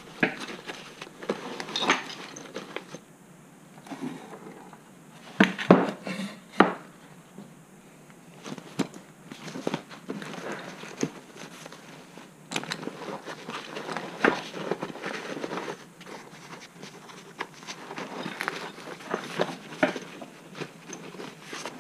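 A nylon briefcase-style plate carrier being folded up and zipped shut by hand: fabric rustling and zipper noise, with scattered clicks and knocks of its buckles and hardware.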